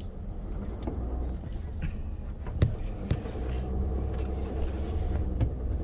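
Outdoor ambience: a steady low rumble, with a few sharp clicks around the middle and near the end.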